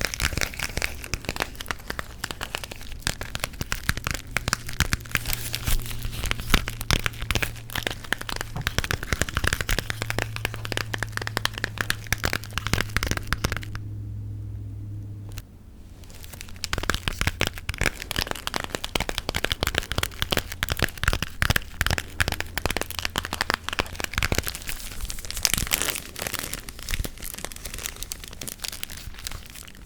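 Close-miked ASMR gum chewing and tapping: a dense run of quick, sharp crackles and clicks. It stops for about two seconds a little past the middle, then picks up again.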